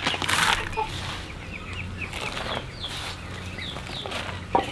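A flock of chickens clucking, many short calls overlapping, with a brief burst of rustling near the start and a sharp click near the end.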